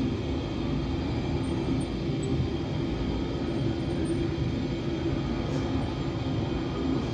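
Steady low rumbling drone with a faint hum running through it, unchanging in level: an ambient soundscape from the show's sound design.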